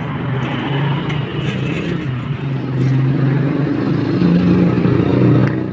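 A motor vehicle engine running steadily. Its pitch rises briefly about four seconds in, settles back, then cuts off suddenly.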